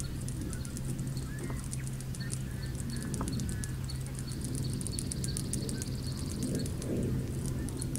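A chorus of insects in a pine tree making a rapid, high-pitched clicking, many clicks a second, with a thin steady whine joining it in the middle, over a low steady hum. The bugs sing when the sun warms the tree and fall silent when disturbed.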